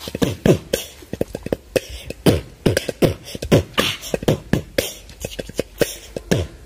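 Percussion break of the song's backing track with no singing: deep drum strokes that each drop in pitch, mixed with sharp slap-like hits, in a quick, uneven rhythm.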